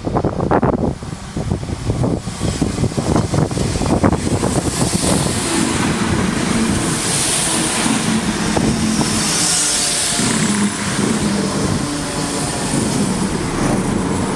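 A large vehicle running close by: a run of knocks in the first few seconds, then a steady rumble and hiss.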